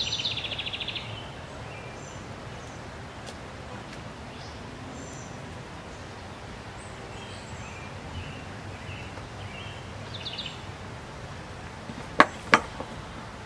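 Quiet outdoor background with small birds chirping: a fast trill at the start, scattered short chirps, and another brief trill about ten seconds in. Two sharp clicks about a third of a second apart come near the end and are the loudest sounds.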